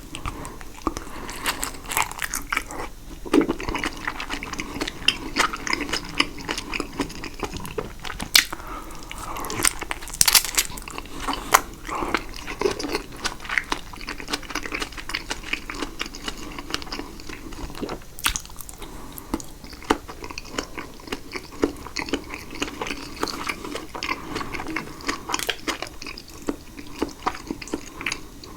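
Close-miked chewing and biting of caprese salad: wet, sticky mouth sounds with many irregular sharp clicks and smacks.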